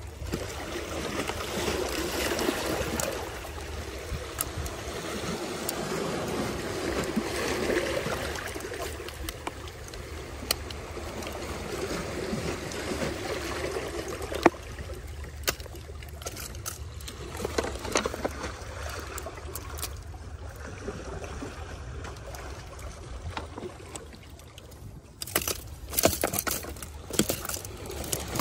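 Sea water sloshing and gurgling among shoreline rocks in a steady wash that swells and eases. A few sharp clicks and knocks come near the end.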